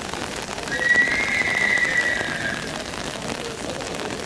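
Rain falling steadily, with a high whistle-like tone that starts about a second in, rises slightly and fades after about two seconds.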